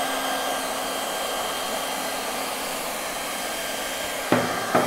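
Hand-held hot-air plastic welding gun blowing steadily as the stop end is welded into the gutter liner. Two brief louder sounds come near the end.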